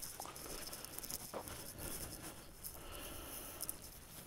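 Faint rustling and scuffing with a few light clicks: movement in dry grass and clothing close to the microphone.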